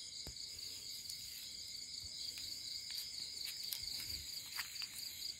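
Crickets chirping in a steady, rapidly pulsing night chorus, with a few faint clicks.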